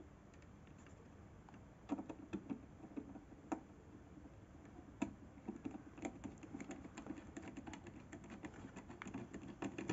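Small clicks and taps of hands handling PC parts and cables. A few scattered ones come after about two seconds, then they come thick and fast from about six seconds in.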